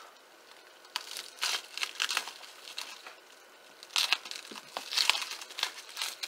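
Clear plastic cling wrap crinkling and tearing as it is cut and peeled off a stack of trading cards. It comes in irregular bursts, starting about a second in and growing louder again from about four seconds.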